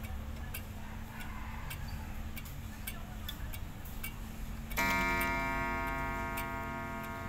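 Mauthe pendulum wall clock ticking steadily. About five seconds in, its spiral gong is struck once, the single half-hour strike, and rings with a rich, slowly fading tone.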